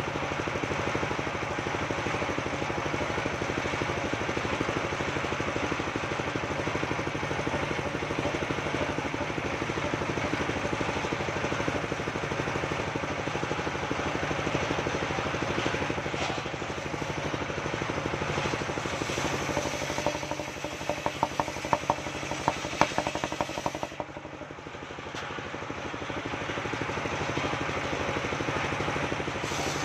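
Engine of a truck-mounted circular sawmill running steadily. A run of sharp knocks and clatter comes about two-thirds of the way in, then the sound drops briefly quieter before picking back up.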